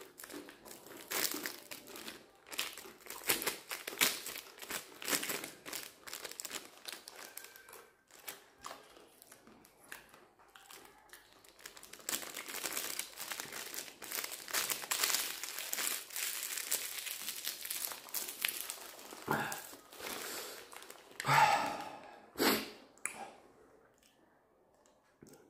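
Crinkling and crumpling of a shiny plastic instant-noodle packet (RumPum) being handled and turned in the hands, with a quieter stretch about a third of the way in and a few louder crackles near the end.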